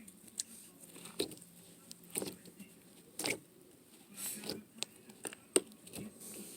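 Slime being squished and pulled by hand, making irregular small sticky clicks and pops.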